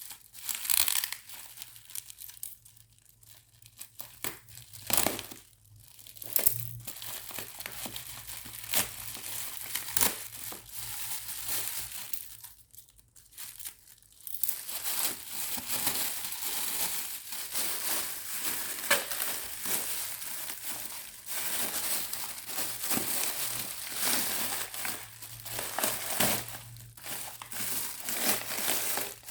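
Parcel packaging crinkling, rustling and tearing as it is handled and unwrapped, in irregular spells with brief quieter lulls.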